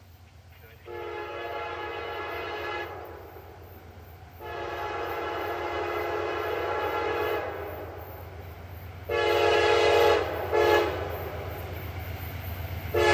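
Freight locomotive air horn sounding a chord of several notes in a sequence of blasts: two long blasts, then two short ones, with another long blast starting at the very end, as the train approaches.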